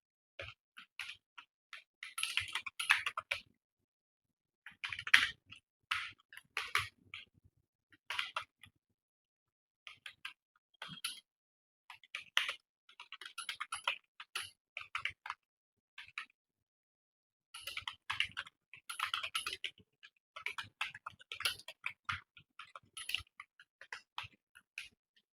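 Computer keyboard typing in irregular runs of keystrokes, pausing briefly several times between runs.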